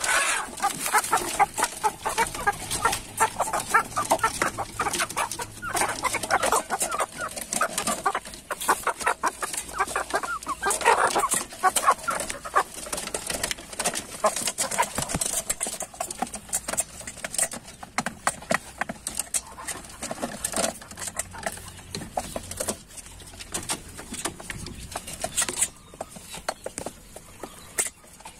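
Domestic chickens clucking and squawking busily at feeding time, most calls in the first half, amid many short taps and clicks.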